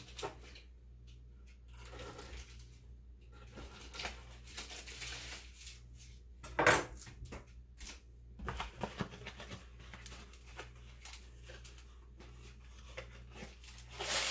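Kitchen handling noises: paper rustling and light clicks as cut granola bars are moved about on a paper-lined board, with one sharp knock about seven seconds in.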